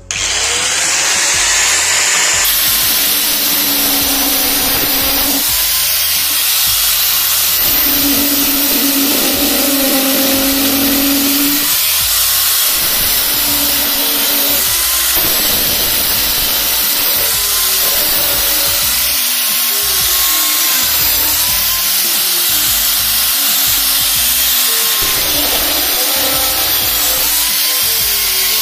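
Handheld angle grinder with an abrasive cut-off disc running and cutting into an aluminium-sleeved wooden rolling pin: a loud, steady grinding hiss, with the motor's pitch dipping and recovering every few seconds as the disc bites into the metal.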